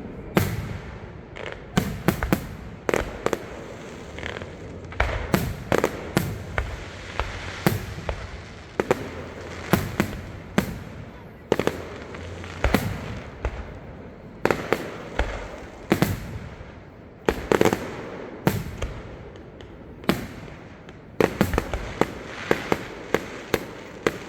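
Fireworks finale: aerial shells bursting in quick succession, sharp bangs coming several a second in clusters, each followed by a rumbling echo.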